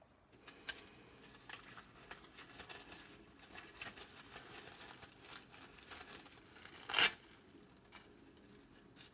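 Clear plastic bag crinkling and rustling as it is handled by a gloved hand, with one louder crinkle about seven seconds in.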